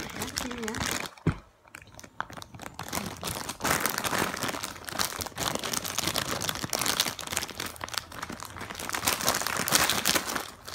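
Plastic packaging crinkling and rustling as it is handled, irregular and continuous, with a single short knock about a second in.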